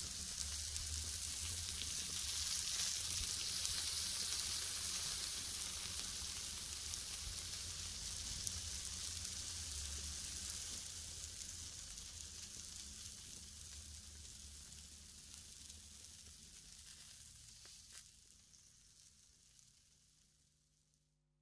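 Meat sizzling on a grill: a steady hissing sizzle with an occasional pop, fading out gradually over the second half until it stops just before the end.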